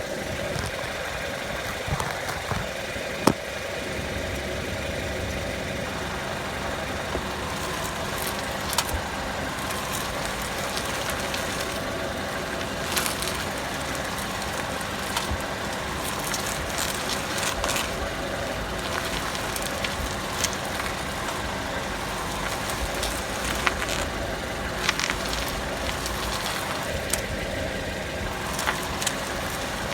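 Skoda Rapid steering rack knocking: irregular sharp knocks and clicks over the car's steady engine noise. The knocking is the sign of a faulty steering rack, one already replaced under warranty that knocks again after about 5,000 km.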